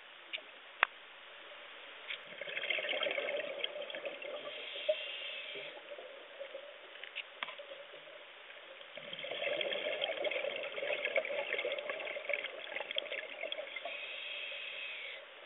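Scuba diver's exhaled bubbles gurgling out of the regulator, heard underwater: two long exhalations, the first starting about two seconds in, the second, longer one about nine seconds in. A sharp click sounds near the start.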